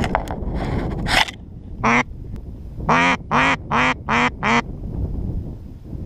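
Duck quacking: one quack, then a run of five quacks at an even pace about a second later.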